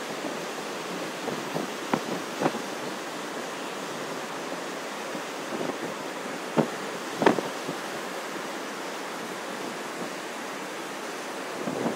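Storm surf breaking in a steady, continuous wash of waves. Wind buffets the microphone in a few short gusts, the strongest about six and a half and seven seconds in.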